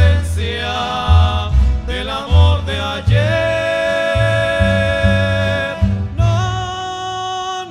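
Rondalla singing a romantic ballad in vocal harmony over guitars and a pulsing bass. A long held, wavering note from about three seconds in to about six seconds.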